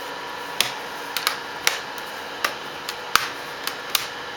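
Plastic screen bezel of a Dell Inspiron 14z laptop being pressed back on by hand, its snap tabs clicking into place one after another: about nine sharp clicks at uneven intervals, the loudest about three seconds in. Each click is a tab seating, the sign that the bezel is in.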